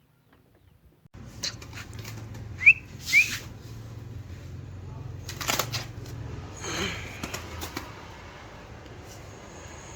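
Birds in a pen: two short rising chirps about two to three seconds in, among sharp knocks and rustling, over a steady low hum.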